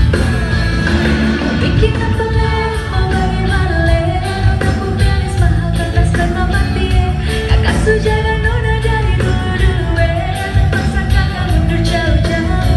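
A band playing a song with a singer: a sung melody over drums and bass, at a steady loud level.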